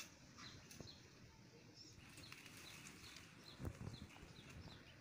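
Faint bird chirping: a short high chirp repeated about two or three times a second. A bit over halfway through, a brief rustle of curry leaves as a branch is handled.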